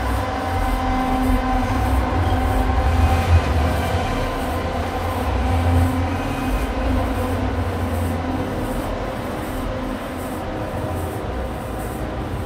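Live electronic drone music: a dense, rumbling wall of sound with a heavy low end and several held tones, a faint pulse in the highest frequencies about one and a half times a second. The deep rumble eases off a little after about eight seconds.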